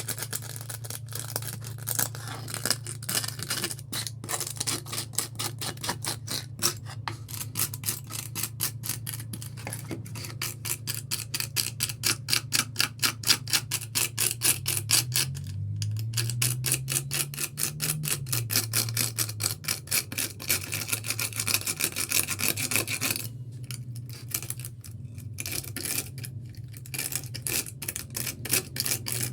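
Hand sanding of a fibreglass repair: quick back-and-forth scraping strokes, several a second, pausing briefly a few times near the end, over a steady low hum.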